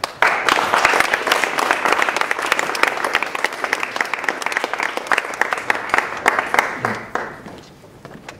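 Audience applauding: dense clapping that starts at once and dies away shortly before the end.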